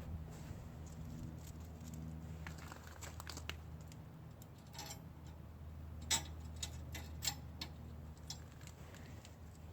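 Faint clicks and light metal taps from the steel sleeve-hitch parts and their screw being handled and fitted by hand, over a steady low hum. A few sharper clicks come about six to seven seconds in.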